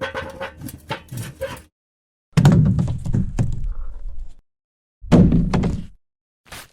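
Foley recordings of objects breaking, one after another: a run of small snaps and cracks, then two louder, heavier breaks about two and a half and five seconds in, and a short click near the end.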